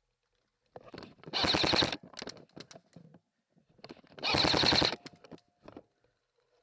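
Airsoft rifle firing two short full-auto bursts of rapid clicks, about three seconds apart, with scattered fainter clicks between.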